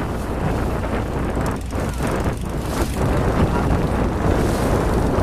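Wind buffeting the microphone on a moving small riverboat, over the steady rumble of its engine and water rushing past the hull; the rumble grows a little louder about three seconds in.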